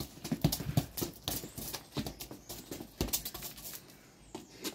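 A football being tapped and rolled under trainers on stone patio paving: a run of light, irregular taps and scuffs, briefly quieter about three and a half seconds in.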